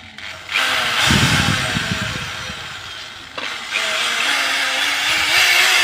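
A small motor whirring with a noisy hiss. Its pitch slides down during the first few seconds and climbs again from about four seconds in, as it slows and then speeds up.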